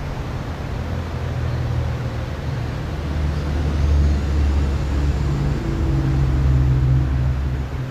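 Loud low outdoor rumble over a faint hiss, swelling about three seconds in and staying up toward the end.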